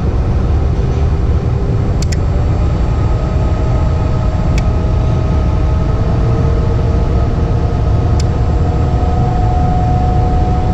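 Lennox EL296 gas furnace running with a steady low rumble of its motors and air, a few faint hums drifting slightly in pitch. A few faint clicks come about 2, 4.5 and 8 seconds in.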